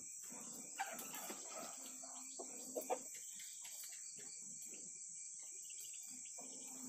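Crickets chirring in a steady high-pitched chorus, with a few faint snaps from the cooking fire roasting the eggplant.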